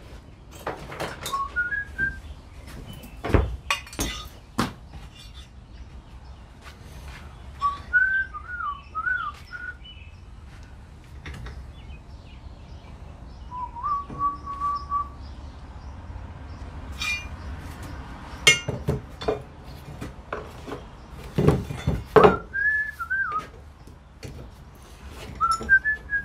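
A person whistling a few short wavering phrases on and off, amid sharp metallic clinks and knocks of tools and parts being handled.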